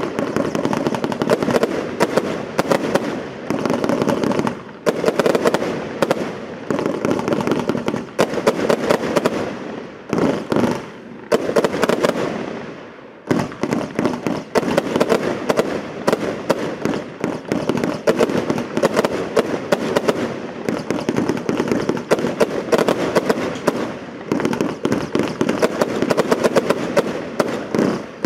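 A firework combination box (compound cake) firing a dense, rapid run of shots, launches and bursts following close on one another. There is a short lull about twelve to thirteen seconds in, then the volley carries on.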